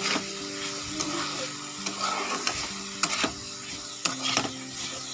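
Vegetables sizzling in oil in a steel wok as they are stir-fried with turmeric and cumin powder, with a metal spatula scraping and knocking against the pan about once a second.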